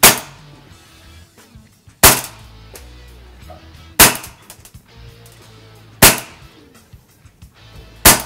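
WE Makarov gas-blowback airsoft pistol, fitted with its suppressor and extended inner barrel, firing five single shots about two seconds apart through a chronograph, each a sharp pop with a short tail.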